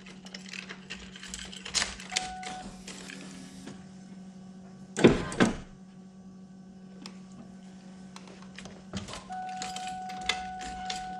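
Power window motor in a 1999 Ford Mustang SVT Cobra door, with the door panel off, running in two short runs to lower the glass: briefly about two seconds in, then for about two and a half seconds near the end. Clicks and two loud knocks about five seconds in come from handling the door.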